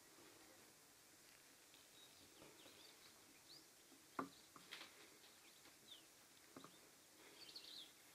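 Near silence with faint, scattered bird chirps and a few soft clicks, the sharpest about four seconds in.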